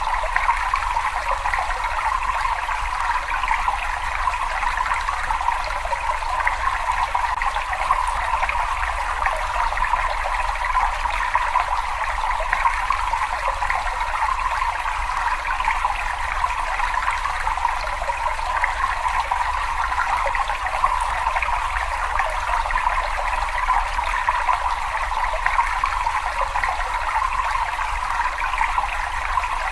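Steady rushing and trickling of flowing water in a cave, an even stream of sound that does not change.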